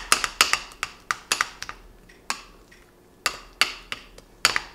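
Spoon clinking and scraping against a small glass bowl while stirring a sauce, about two or three sharp taps a second, with a pause of about a second midway.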